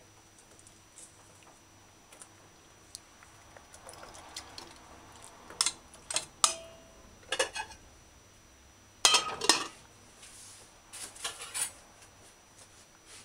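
A metal fork clinking and scraping against a stainless steel bowl of chicken pieces in coconut milk. The clinks come in short clusters, the loudest about nine seconds in, and one leaves a brief metallic ring.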